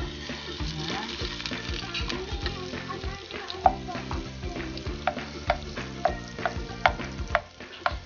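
Butter sizzling as it melts in a hot nonstick frying pan, stirred with a wooden spatula that scrapes and taps against the pan, with sharp taps coming more often from about three and a half seconds in.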